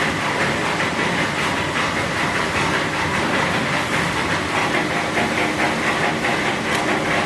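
PP/PE plastic film recycling washing line running: a steady, dense mechanical din with a faint irregular clatter through it.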